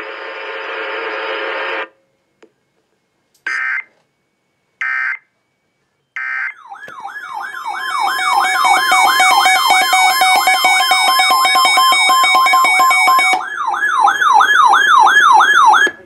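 Weather-band radios receiving an Emergency Alert System alert. The broadcast audio cuts off, three short bursts of the digital alert header follow, then a receiver's fast rising-and-falling siren-like alarm starts. The steady NOAA weather alert tone sounds over the alarm and stops a couple of seconds before the warble does.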